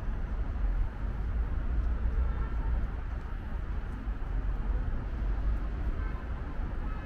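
City street ambience: a steady low rumble of traffic under a faint wash of street noise.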